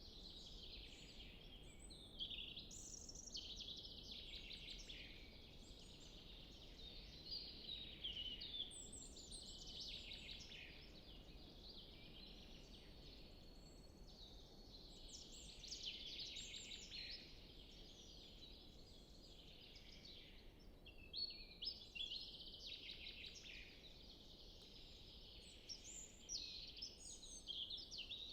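Forest songbirds singing, faint: overlapping high-pitched song phrases follow one another with short gaps, over a low, even background hiss.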